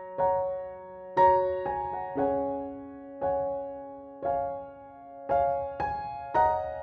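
Slow, gentle piano music: a chord struck about once a second and left to ring out.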